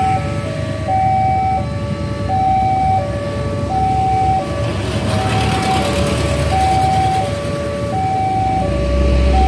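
Railway level-crossing warning alarm sounding with the barriers down: an electronic chime of three descending notes, the first held longest, repeating about every 1.4 s. Motorcycle and car engines idle and run beneath it, and a heavy vehicle's deep rumble comes in near the end.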